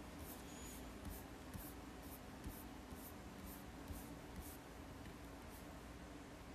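Computer mouse scroll wheel turned in short flicks while paging through a document, faint soft strokes about two a second over a low steady room hum.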